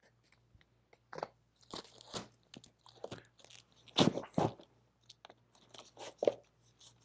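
Vinyl LP jackets being flipped through and shuffled in a record bin: a run of irregular cardboard and plastic rustles and scrapes, loudest about four seconds in.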